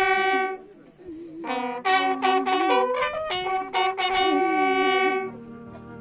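A military bugle sounding a slow call of long held notes during a funeral salute: one held note that breaks off just after the start, a pause of about a second, then a run of notes stepping up and down that stops about five seconds in.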